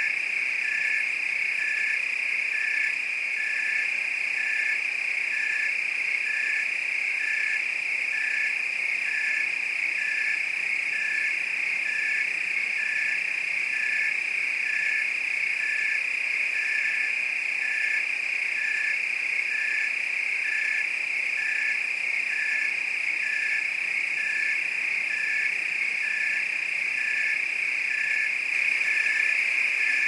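Crickets trilling in a steady, unbroken chorus, with a frog calling in short notes repeating evenly about once a second beneath it.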